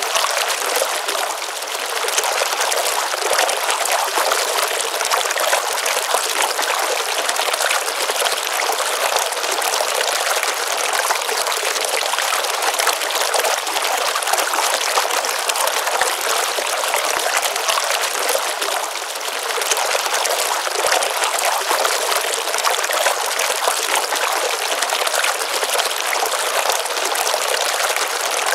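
Pond stream water flowing and splashing, a steady rush of water with no low rumble.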